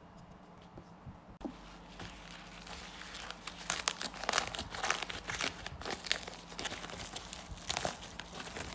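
Packaging crinkled and torn open by hand: irregular crackling and rustling that starts about a second and a half in and gets louder and busier from about three seconds in.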